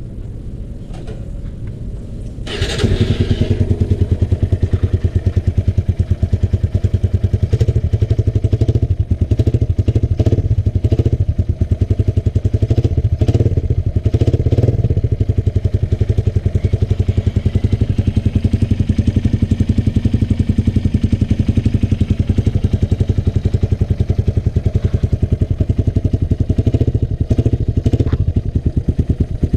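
Suzuki Raider 150's single-cylinder four-stroke engine starting about two and a half seconds in and then idling steadily and loudly through an aftermarket 51 mm big-elbow exhaust with a carbon-look silencer.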